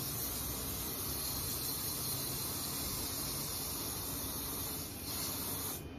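Aerosol hairspray can spraying in one long hiss, broken briefly about five seconds in, then stopping near the end.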